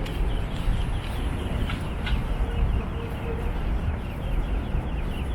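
Busy street background with a steady low rumble and many quick, high bird chirps repeating throughout.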